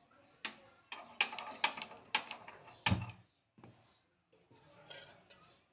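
Sharp clicks and knocks of a steel kadhai being handled on a gas stove as the burner is turned on, with a heavier thump about three seconds in, then a soft hiss near the end.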